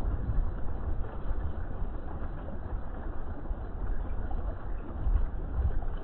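Fountain water splashing steadily into a pond over rocks, with a low, uneven rumble underneath.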